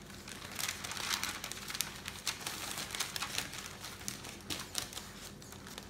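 A sheet of parchment paper crinkling and rustling under the hands as it is folded in half and pressed into a crease, with irregular crackles throughout.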